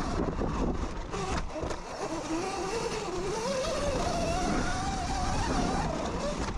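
Electric dirt bike's motor whining under way, its pitch wavering up and down with the throttle, over a low rumble of wind and trail noise.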